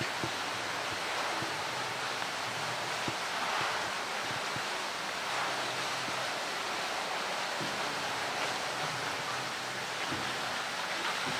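Steady rushing and splashing of water in a polar bear's pool as the bear swims through it, with a few faint knocks.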